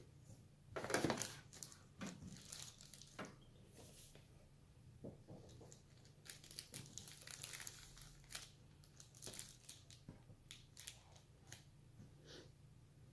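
Irregular plastic crackling and small sharp clicks from laptop parts being handled during disassembly. The loudest burst comes about a second in, followed by scattered lighter clicks.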